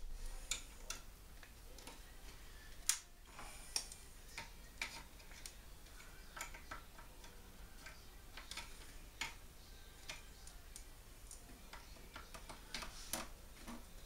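Small irregular clicks and taps of cable connectors being plugged back into the circuit boards of a plasma TV, with one louder click about three seconds in.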